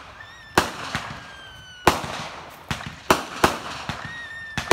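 Aerial fireworks going off: about seven sharp bangs in quick, irregular succession, with thin, slightly falling whistles between them.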